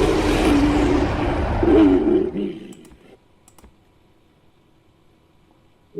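A composite creature roar built from big-cat, bear and ape recordings. It is a loud, rough, wavering growl with a deep rumble that dies away about two and a half seconds in. A couple of faint clicks follow in near silence.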